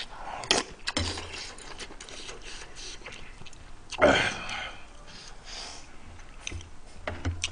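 Close-miked eating of noodle stew: chewing and slurping, with light clicks of a metal spoon and chopsticks against the bowl. One louder mouth sound comes about four seconds in.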